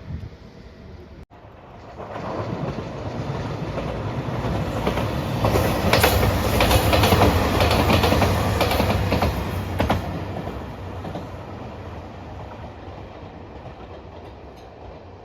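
A train passing close by. The sound breaks off for an instant about a second in, then swells from about two seconds in and is loudest in the middle, with the wheels clacking over the rail joints, before fading away.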